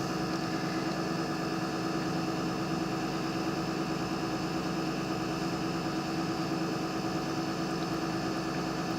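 Steady electrical hum with several fixed tones over a light hiss, unchanging throughout.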